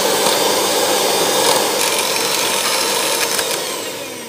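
Electric hand mixer with twin wire beaters whipping chilled cream in a glass bowl: the motor runs with a steady high whine, then slows and winds down near the end.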